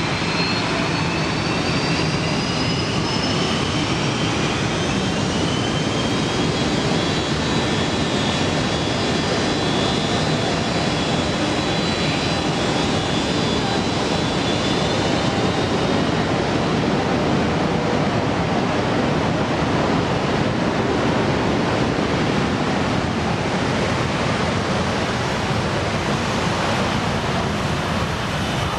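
McDonnell Douglas MD-83's rear-mounted Pratt & Whitney JT8D turbofans spooling up for takeoff: a loud, steady jet roar with a whine that rises in pitch over the first few seconds, then holds steady.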